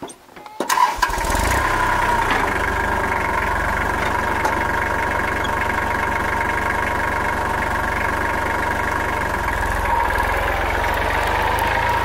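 Kubota L3410 tractor's diesel engine starting about a second in, then running steadily.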